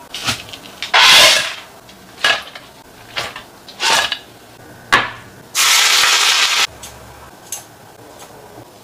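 Ingredients dropped and tipped into a clay pot and a glass bowl, making a quick clatter or rustle about once a second, with a steady hiss lasting about a second just past the middle.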